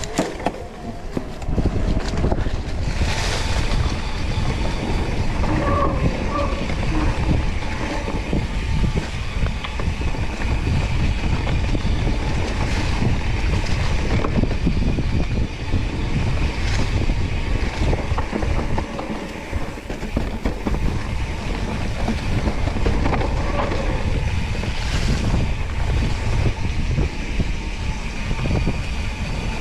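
Mountain bike riding over rough trail: a steady rumble and rattle from the bike, with wind rushing over the microphone and scattered knocks from the terrain.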